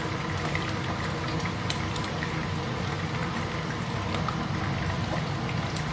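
Fish bones frying in hot oil in a pan under a mesh splatter screen: steady sizzling with scattered small pops and crackles, over a low hum.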